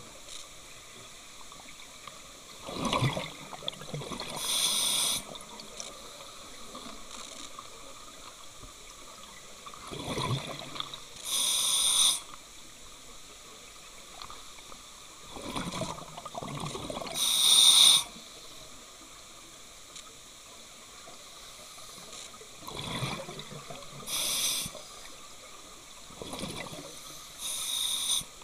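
Scuba diver breathing through a regulator underwater, heard at the diver's own camera. Each breath is a rumbling burst of exhaust bubbles on the exhale and a short sharp hiss from the demand valve on the inhale, about five breaths several seconds apart.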